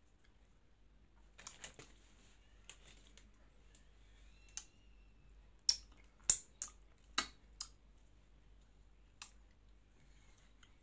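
Sharp cracks and snaps of a Magnum ice cream bar's hard chocolate shell being bitten and chewed close to the microphone: a few small ones at first, then a cluster of about five loud cracks around the middle.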